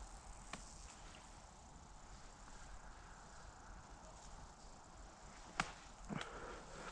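Faint footsteps and rustling in dry leaf litter, with a sharp click about five and a half seconds in and a few quick leaf crunches just after.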